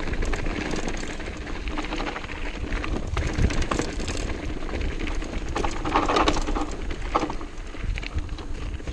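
Mountain bike rolling downhill on a gravel track: tyres crunching over loose gravel and the bike rattling over bumps, with wind buffeting the microphone.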